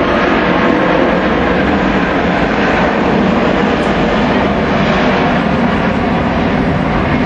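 Airbus A380's four jet engines giving a loud, steady roar as the airliner passes overhead in a banking turn.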